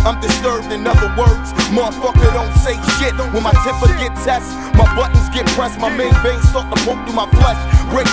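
Boom bap hip-hop track: a hard, steady drum beat and bass line with a rapped verse over it.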